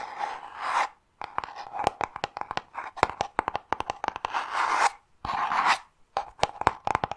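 Fingernails tapping and scratching on a small kraft-paper cardboard box held close to the microphone: quick sharp taps mixed with stretches of scratchy rubbing, broken by a few short pauses.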